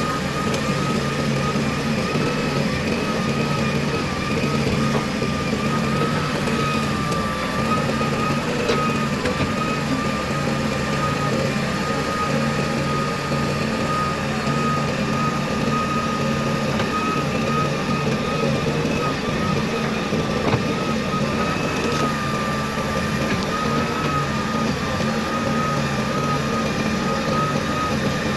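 Heavy diesel machinery running steadily, with a continuous high whine that wavers slightly in pitch.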